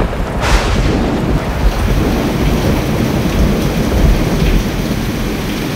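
Thunderstorm: low rolling thunder rumbling under a steady hiss of heavy rain, with a sharper swell about half a second in.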